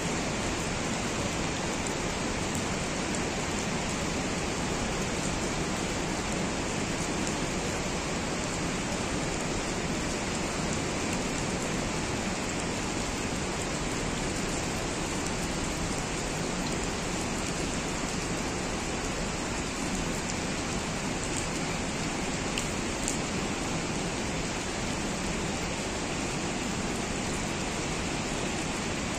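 Steady rain falling, an even hiss with a few faint ticks.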